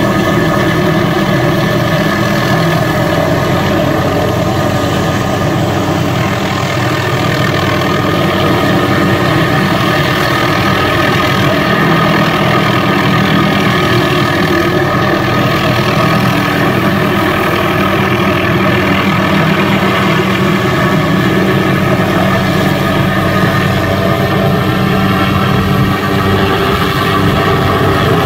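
MD 500 helicopter hovering overhead with a tree-trimming saw boom slung beneath, its turbine and rotor running steadily at an even pitch.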